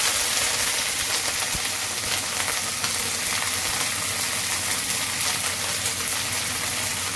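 Curry leaves sizzling steadily in hot oil in a deep nonstick pan, as handfuls of leaves are dropped in.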